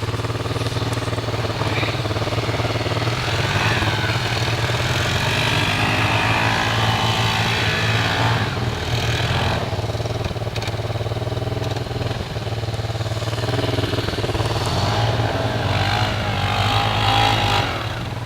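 ATV engine running under throttle, rising and falling in pitch as it revs up and down, then easing off near the end.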